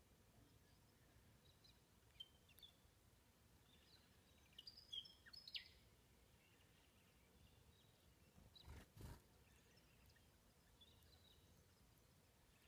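Near silence outdoors with a few faint, short bird chirps clustered in the first half, and a brief muffled bump about nine seconds in.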